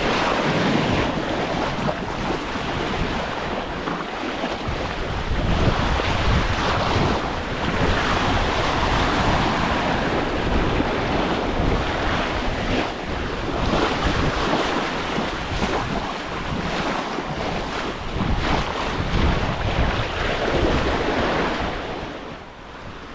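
Wind buffeting the microphone over the rush and slosh of waves along a sailing yacht's hull as it sails at speed, in surging swells.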